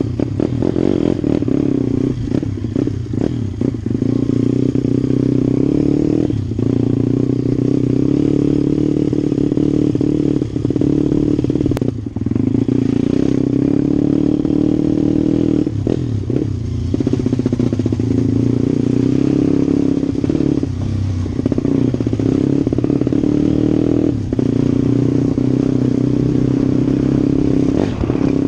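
Pit bike engine running under way, recorded on board while riding, with the engine note dipping briefly several times as the throttle is eased.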